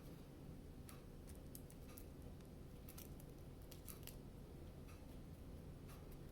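Faint, scattered small clicks and taps of plastic Lego minifigure pieces being handled and fitted together, over low room noise.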